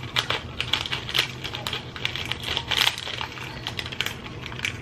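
Small plastic granola packet crinkling as it is opened and tipped, with dry granola falling into a plastic acai bowl cup: a run of irregular crackles and clicks.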